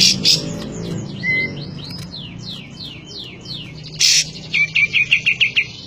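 Kapas tembak songbird singing: a run of about eight quick downward-sliding whistled notes, then a fast trill of short notes near the end. A sharp click breaks in about four seconds in.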